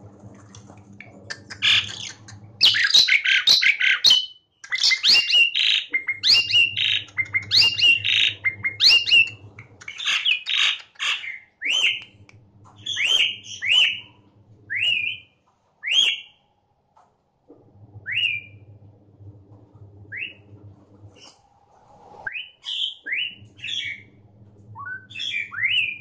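Asian pied starling singing. About ten seconds of dense harsh chattering mixed with whistled notes, then a string of separate short rising whistles about a second apart.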